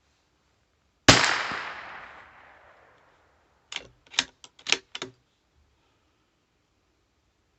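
A single rifle shot about a second in, its report echoing away over about two seconds. A couple of seconds later comes a quick run of about six sharp clicks and clacks.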